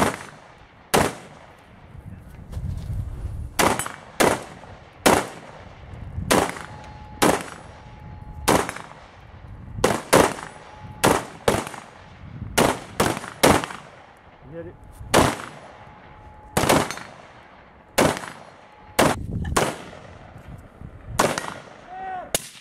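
AR-15-style semi-automatic carbine firing about two dozen single shots at uneven intervals, many of them in quick pairs about a third of a second apart.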